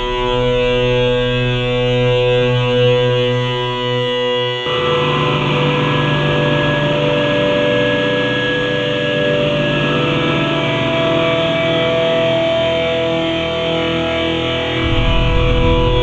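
Experimental electronic sound effect: a droning texture of held, guitar-like tones that switches abruptly, about a third of the way in, to a denser, grainier, distorted wash, with a deep bass coming in near the end.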